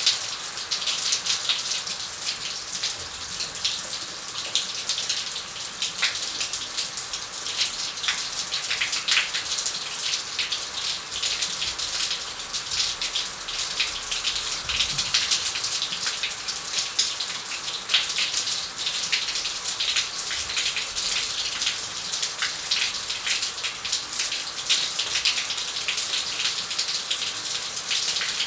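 Shower running steadily, water spraying from the showerhead and spattering onto the floor of the shower, with a constant hiss and many small crackling splashes.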